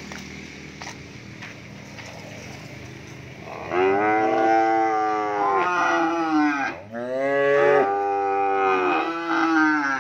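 Cattle mooing: three long, drawn-out moos one after another, beginning about four seconds in.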